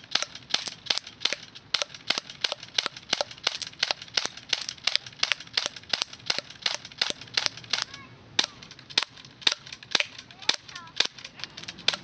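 Airgun firing steel BBs in rapid succession: sharp cracking shots about four a second. After a short break about eight seconds in, the shots come more slowly, about two a second.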